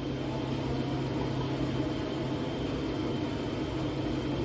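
A steady low machine hum with an even hiss behind it, with no change through the stretch.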